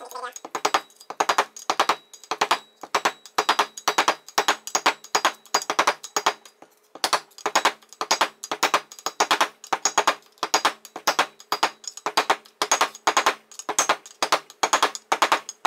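Repeated hammer taps, about three a second, seating a dust cap onto a BMW X5 E53 transfer case's aluminium housing, each strike ringing briefly; a short pause about seven seconds in.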